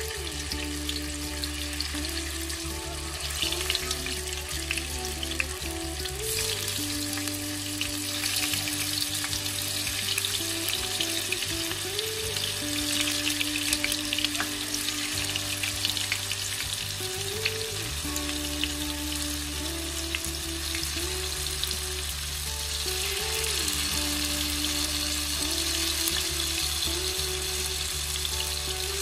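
Tofu cubes frying in hot oil in a nonstick pan: a steady, dense crackling sizzle that thickens a few seconds in as more cubes go into the oil.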